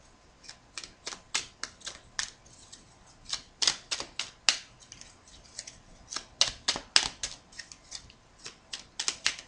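A deck of tiny oracle cards being shuffled by hand: quick, irregular snaps and flicks of card against card, several a second, coming in flurries.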